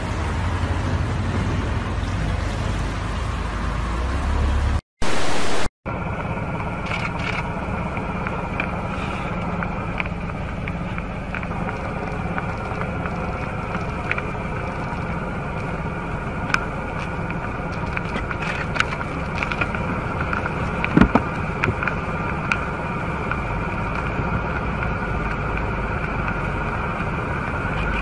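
Steady outdoor background noise with a low hum, broken about five seconds in by a short, loud burst of TV static. A few faint clicks come later.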